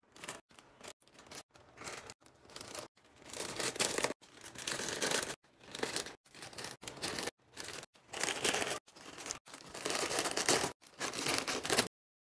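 Foil crisp packets (Walkers) crinkling as they are handled and packed into a plastic snack drawer. It comes in a run of short bursts with brief silent breaks between them, and stops shortly before the end.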